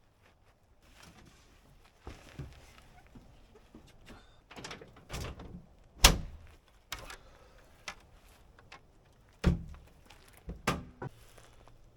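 Rustling and a series of sharp thumps and knocks, the loudest about six seconds in and two more strong ones near the end, like a vehicle door shutting and gear being handled.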